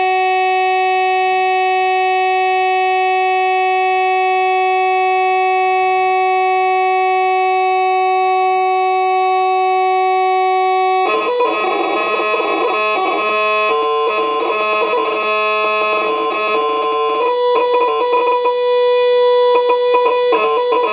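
Point Abino Lighthouse fog horn unit sounding a loud, steady single tone for about eleven seconds. It then abruptly breaks into a jumbled, stuttering mix of tones and settles into a higher steady tone with short breaks near the end, which doesn't sound right to the men testing it.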